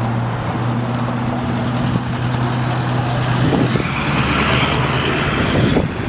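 Road traffic: a car engine idling with a steady low hum, then a passing vehicle whose tyre noise swells over the last few seconds.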